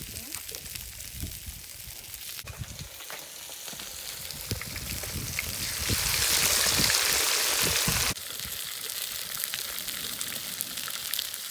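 Pork sizzling and crackling as it cooks, a steady hiss with small pops that grows louder about six seconds in and then drops off suddenly.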